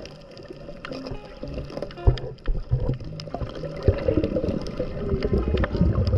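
Underwater sound picked up by a handheld camera while snorkelling: muffled water movement and uneven low bumps, with scattered sharp clicks, busier near the end.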